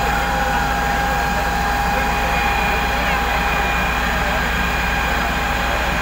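Fire engine's pump running steadily under load with a steady whine, feeding a fire hose jet, with the rush of the water stream underneath.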